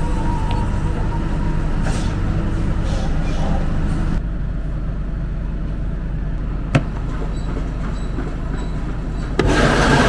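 Farm machinery running with a steady low engine drone. It drops abruptly in level about four seconds in and comes back louder near the end, with a single sharp click in between.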